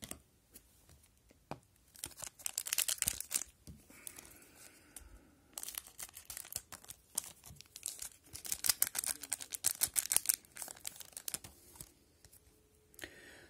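Wrapper of a hockey card pack being torn open and crinkled, in two spells of crackling: about two to three and a half seconds in, and again from about six to eleven seconds.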